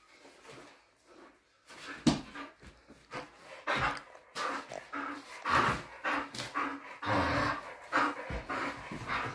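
Bull terrier panting and making short vocal noises in quick bursts while it jumps and tugs at a toy, starting about two seconds in.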